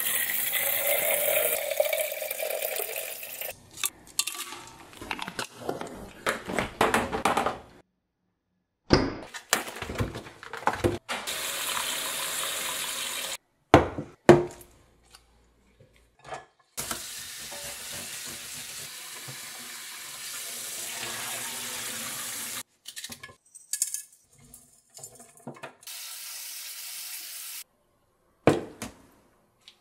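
Water poured into a stainless steel carafe, its pitch rising as it fills, then a kitchen tap running into stainless steel bowls in several stretches, filling them to soak beef short ribs. Sharp clinks of the metal bowls being handled come in between.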